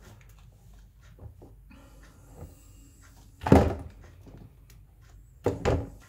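Plastic fittings and tubing of a reverse-osmosis water filter being handled as test valves are taken off: a few light clicks, then two loud knocks about three and a half and five and a half seconds in.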